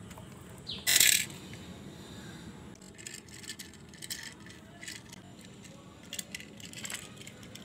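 Small toy cars being handled on a concrete floor. A brief louder rattle comes about a second in, then a run of small clicks and taps as a toy car is pushed along and set down.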